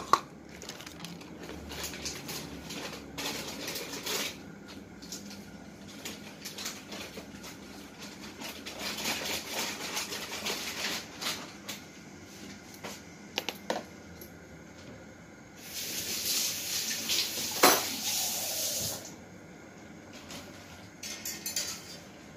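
Kitchen handling noises: dishes and utensils clinking and knocking, with a sharp clank right at the start. About 16 seconds in there is a three-second stretch of hissy noise with a sharp knock in the middle of it.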